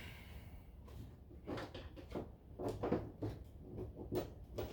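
Irregular light metallic clicks and clinks of bolts, nuts and washers being handled while the last bolt of a winch mount bracket is fitted.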